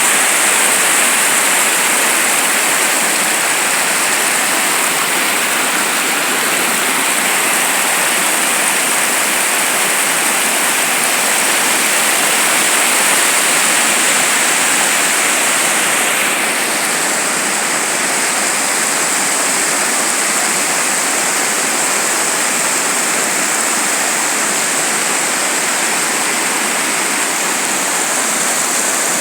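Heavy rain pouring down, a loud, steady rush of water whose tone shifts slightly about halfway through.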